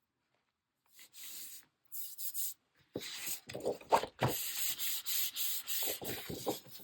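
Paper being handled and rubbed on a desk, a run of scratchy rustling strokes. It is faint at first from about a second in, then busier and denser from about three seconds in.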